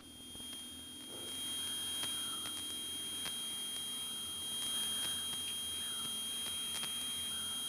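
Aircraft intercom audio feed with no one talking: a faint steady high-pitched electronic whine over a low hiss, getting slightly louder about a second in.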